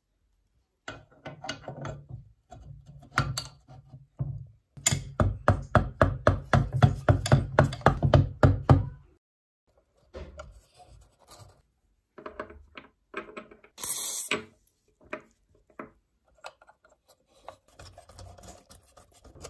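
Metal parts of a cut-away lawnmower engine being handled and fitted together by hand as the connecting rod goes in and its cap nuts are threaded on: scattered clicks and scrapes, with a fast run of even clicks, about four or five a second, for several seconds in the middle. A short hissing scrape comes a little after that.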